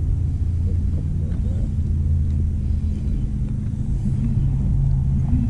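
Boat motor running steadily, a low even hum.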